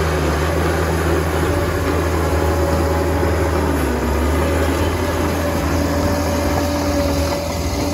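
A Liebherr crawler dozer's diesel engine running under load as the machine pushes a heap of soil with its blade. It is a steady low drone with a faint high whine above it.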